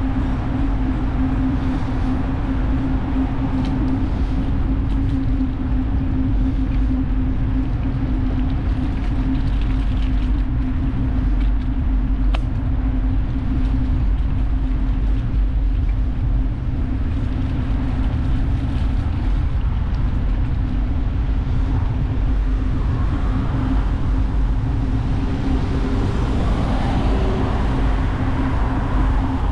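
Continuous wind rumble on the microphone and road noise while riding a bicycle, with a steady low hum underneath. The hiss grows brighter over the last few seconds.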